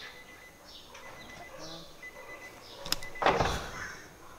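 Short, high, falling chirp-like squeaks repeating about once or twice a second. About three seconds in comes a sharp click, then a brief loud rustle as the cardboard box is handled.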